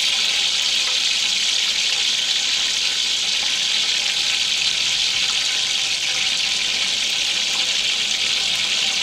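Whole spices and bay leaves frying in hot oil in a large aluminium pot: a steady sizzle.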